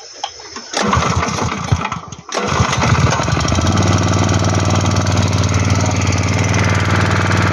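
Small engine being started: it fires about a second in and runs unevenly, cuts out abruptly a second and a half later, then catches again at once and settles into a steady run.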